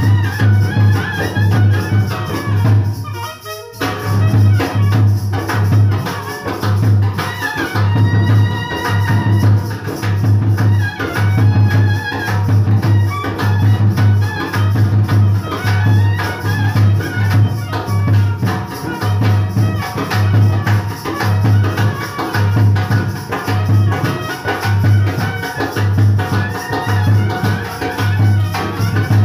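Music with a steady, heavy bass beat and fast shaker-like percussion, with a brief break about three and a half seconds in.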